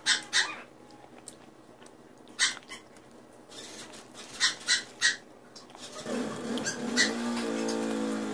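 Mouth sounds of a child eating Jollibee fried chicken and spaghetti: scattered wet smacks and clicks of chewing and slurping. About six seconds in, a low steady hum begins and carries on to the end.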